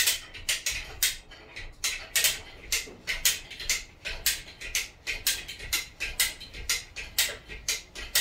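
Rapid series of sharp metallic ratcheting clicks, a few a second and somewhat irregular, from a hand-worked hoist at the rear of a 1956 Chevy Bel Air body hung from overhead straps.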